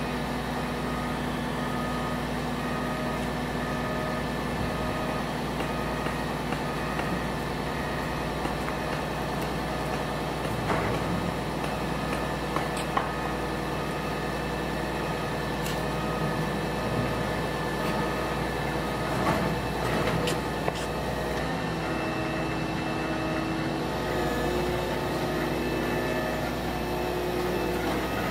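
Volvo EC220EL excavator running steadily while its hydraulic elevating cab is raised, with a few short knocks along the way. A new steady tone joins about two-thirds of the way in.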